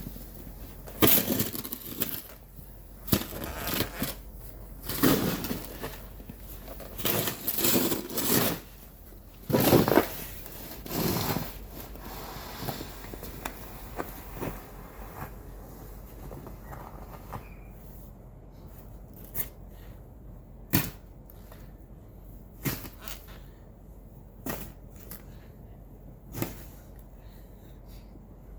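Snow shovel scraping and crunching through snow, with strokes about once a second at first. After about twelve seconds it turns to fewer, short, sharp knocks.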